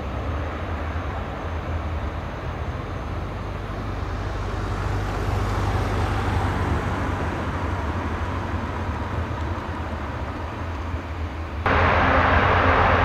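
Aircraft engine noise: a steady rush over a low rumble that swells and fades, then cuts abruptly to a louder, hissier engine noise about twelve seconds in.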